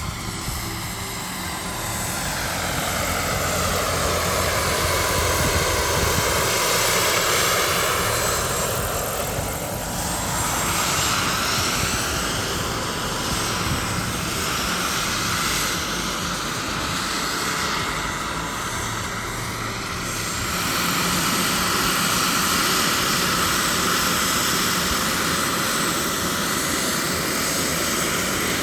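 Radio-controlled model helicopter flying, its rotor and motor whine sweeping down and back up in pitch several times as it passes and manoeuvres.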